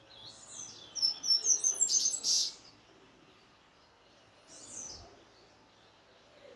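Double-collared seedeater (coleiro) singing in the 'grego' song style: a loud run of rapid, high notes about a second in, lasting under two seconds, and a shorter phrase near the end.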